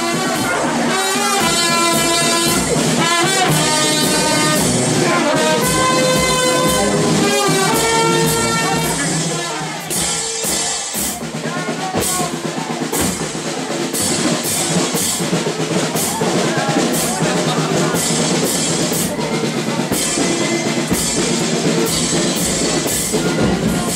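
Music with drums keeping a steady beat, a melody most prominent in the first half.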